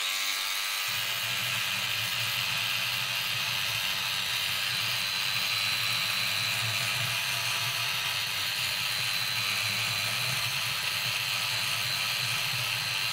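Battery-powered Sonic Scrubber oscillating cleaning brush running steadily as its bristles scrub flux residue off a circuit board wet with isopropyl alcohol: a constant whir with a low hum that joins about a second in.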